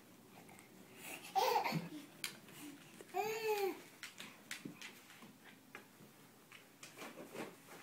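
Baby babbling: a short loud squeal about a second and a half in, then a longer 'aah' that rises and falls about three seconds in. Faint light taps follow near the end.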